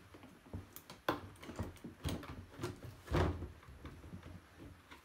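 Fuel pump unit being worked out through the opening of the fuel tank: a few knocks and scrapes of the unit against the tank, the loudest knock about three seconds in.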